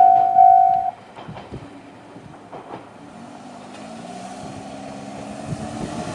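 An electronic level-crossing warning bell with the JR Central-style tone rings about twice a second, then cuts off about a second in as the crossing clears. A faint low hum follows with a few light clicks, growing slowly louder toward the end.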